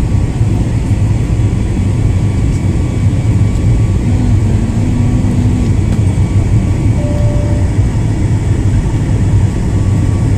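Passenger jet during takeoff, heard from inside the cabin: a loud, steady low rumble of the engines and rushing air, with a faint brief tone about four to six seconds in.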